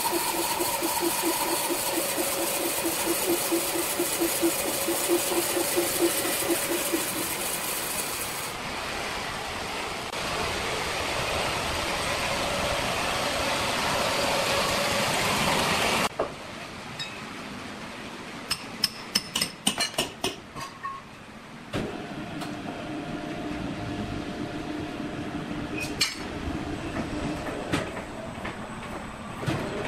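Horizontal band sawmill running through a thick timber, a steady machine sound with a pulsing tone. It changes abruptly twice, then a run of sharp metallic clinks comes a little past halfway, followed by a steadier machinery hum.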